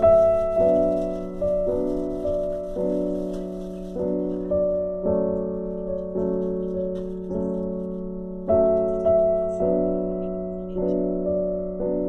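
Background piano music: notes and chords struck about once or twice a second, each dying away.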